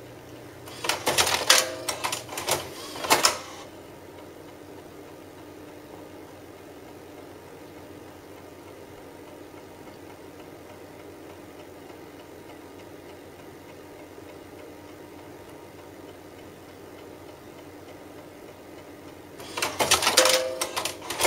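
Rimage Imager 9500 floppy disk duplicator's disk-handling mechanism clattering in two bursts of rapid clicks, about a second in and again near the end, as finished 3.5-inch disks are ejected into the hopper during a format-and-verify run. Between the bursts there is only a faint steady hum.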